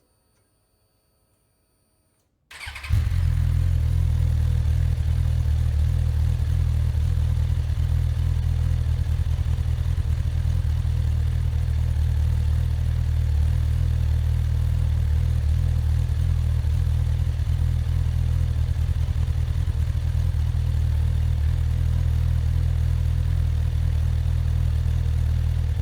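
Suzuki motorcycle engine starting about two and a half seconds in, then idling steadily with an even, deep note.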